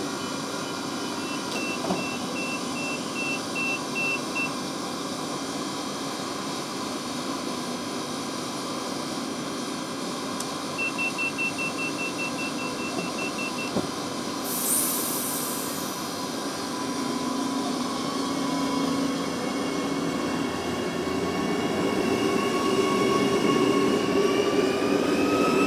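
Adelaide Metro 4000-class electric train at the platform: a run of evenly spaced beeps, then a faster run of beeps, a short hiss, then the traction motor whine rising in pitch and growing louder as the train pulls away.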